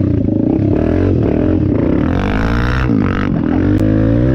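Dirt bike engine running under throttle, its pitch rising and falling as the rider accelerates and backs off, dropping about three seconds in and climbing again.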